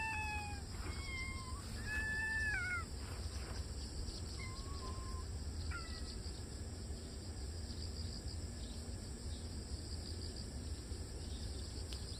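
Kitten meowing in short, high-pitched calls, about five in the first six seconds, the longest about two seconds in.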